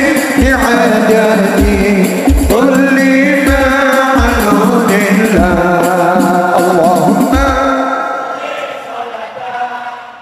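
A hadroh ensemble plays with male voices singing a sholawat melody over deep frame-drum and bass-drum beats. About eight seconds in, the drums stop and the music fades out as the piece ends.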